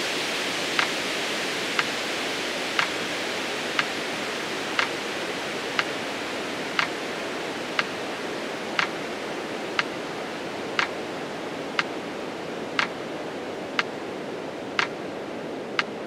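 Metronome ticking once a second, counting out the 20-second exhale of a pranayama breathing cycle, over a steady hiss that slowly grows quieter.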